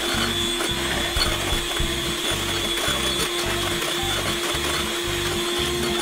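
Electric hand mixer running with a steady motor whine, its beaters whipping green tea meringue of egg white, sugar and matcha powder in a glass bowl.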